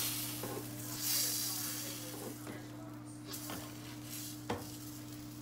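Hamburger patty sizzling in a small frying pan, the hiss fading after about a second, with a few light taps and scrapes of a spatula against the pan and a sharper tap about four and a half seconds in. A steady low hum runs underneath.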